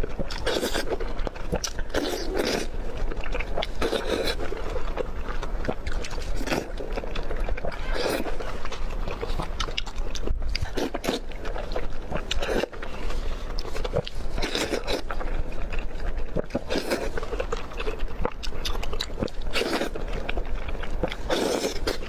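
Close-miked eating sounds of a person biting into and chewing marinated raw oysters, with many short wet clicks and scrapes.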